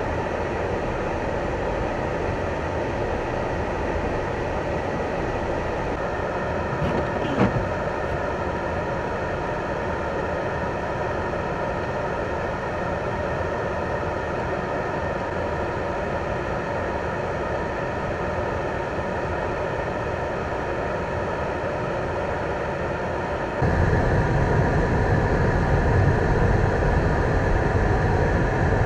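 Steady outdoor traffic noise, with a short sound about seven seconds in. Near the end it switches abruptly to a louder, deeper rumble.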